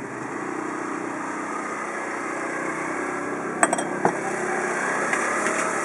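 A steady mechanical hum with a hiss, engine-like, from the running wok stove or a nearby motor. About three and a half and four seconds in come two sharp metal clinks at the wok.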